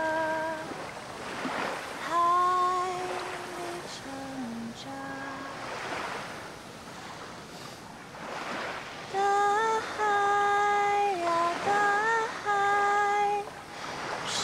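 A woman singing a slow song with long held notes, over ocean waves washing on the shore.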